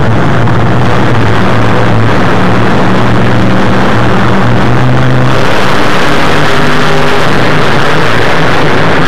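Monster truck V8 engines with open headers running very loud and revving hard, the sound harsh and overloaded. About five seconds in the engine note gets harsher and brighter as a truck accelerates.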